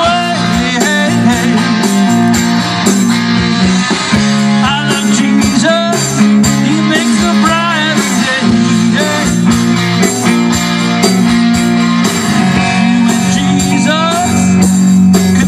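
Live blues-rock band playing loudly on electric guitars and drums, with a lead guitar line of bent, wavering notes over a steady low rhythm.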